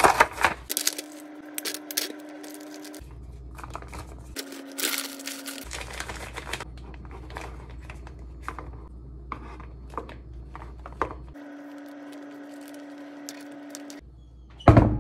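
Crinkling and rustling of plastic packaging as a piping bag set is handled and opened, then scattered soft clicks and scrapes as whipped cream is spooned into a piping bag. A short loud thump near the end.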